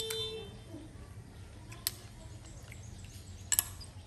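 Metal spoon clicking sharply twice against a plate during a meal, once about two seconds in and again near the end, over a low steady hum. A brief high chirp sounds right at the start.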